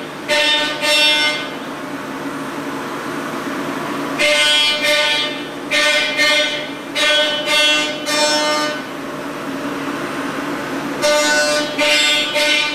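End mill on a C.R. Onsrud CNC machining center cutting thick friction stir welded aluminum. It makes a high-pitched tone in repeated bursts of about half a second, with quieter, steadier running from about two to four seconds and from nine to eleven seconds in.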